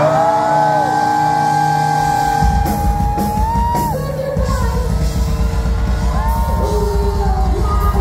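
Live rock band with a female lead singer holding one long high note for about four seconds over guitars, bass and drums, then starting another near the end. The bass and drums come in heavily about two and a half seconds in.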